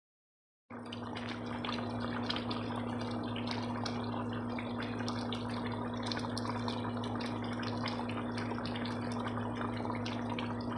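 Water bubbling and splashing with many small pops and drips, over a steady low hum from an air conditioner.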